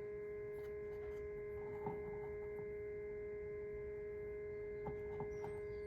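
A steady electrical hum at one pitch with several fainter higher overtones, and a few faint light taps about two seconds in and near the end.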